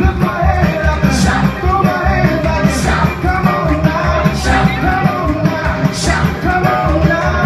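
Live band playing loud rock and roll with a singer, over a heavy, steady bass beat and a bright accent about every second and a half.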